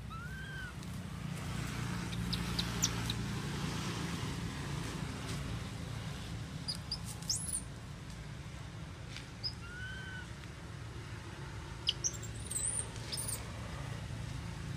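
Outdoor ambience: a few quick, high bird chirps and two brief rising-and-falling calls, over a steady low hum.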